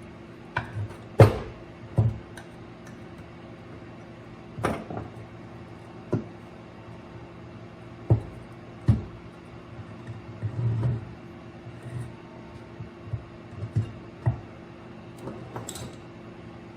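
Irregular knocks and clinks of metal parts and tools being handled while a snowblower gear reduction unit is taken apart, about a dozen separate strikes with the loudest about a second in, over a faint steady hum.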